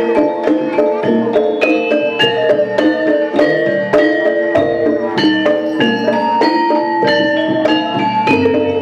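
Gamelan playing jaranan dance music: fast runs of struck metal-keyed notes, several a second, each ringing on.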